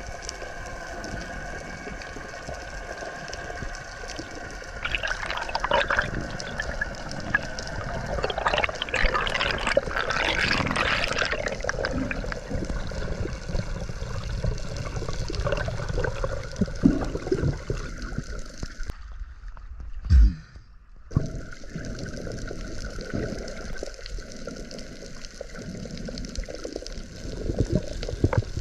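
Underwater sound through a diving camera's housing: a steady wash of moving water with gurgling and bubbling, busier from about five to twelve seconds in. About twenty seconds in the sound drops out briefly around a single low thump.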